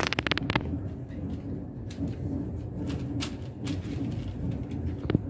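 Hands patting and pressing raw dough on paper to seal the edges of a stuffed focaccia: a quick run of light taps at the start, then a few single taps, over a steady low hum.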